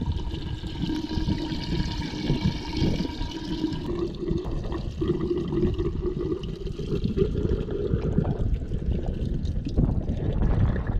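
Diesel being poured from a plastic canister into a tractor's fuel tank filler, a steady pouring with a tone that rises slightly as it goes.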